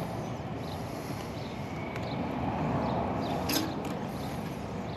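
Steady background hum, with a faint click about two seconds in as needle-nose pliers pull a spade connector off a run capacitor's terminal.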